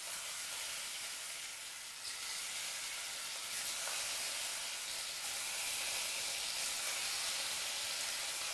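Hot oil sizzling as spice-and-gram-flour-coated bitter gourd slices are dropped in one by one to deep-fry. A steady hiss starts as the first slice goes in and grows a little louder about two seconds in as more slices are added.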